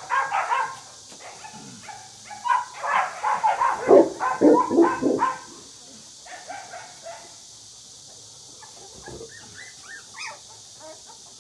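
Young Canary dog (Presa Canario) puppies whining and yelping in a rapid string of short, high cries. A few deeper, louder yelps come around four to five seconds in, then the cries thin out to quieter whimpers.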